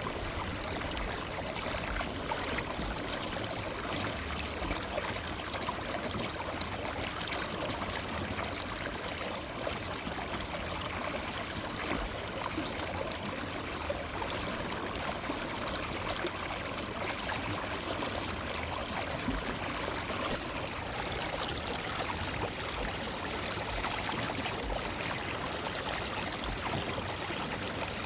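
Forest river flowing over rocks: a steady rush of running water with fine splashing and gurgling.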